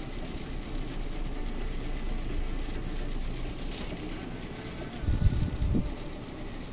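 Small yellow plastic-gearbox DC hobby motor spinning a wheel, its gears running with a fast rattling whir. The whir cuts off about five seconds in, followed by a couple of low thumps.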